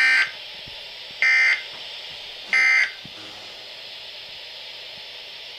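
Three short buzzy bursts of SAME digital alert data from a weather radio broadcast, each about a third of a second long and about 1.3 s apart. Their shortness fits the end-of-message code that closes a warning. After them comes a steady background hiss.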